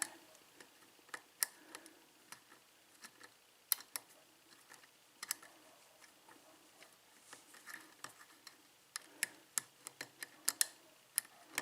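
Six-pin Dorma pin-tumbler cylinder being single-pin picked with a hook pick under light tension: faint, irregular clicks of the pick working the pins and pins setting, coming more often near the end.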